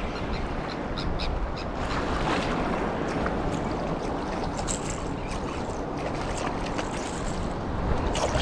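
Surf slapping and churning around a wading angler's legs, with a hooked speckled trout splashing at the surface about four seconds in and again near the end as it is brought close.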